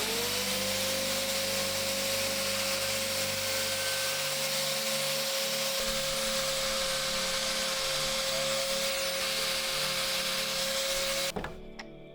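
An electric shop power tool starting up, its motor whine rising quickly to a steady pitch, then running with a steady hissing cutting noise before stopping abruptly near the end, over quiet background music.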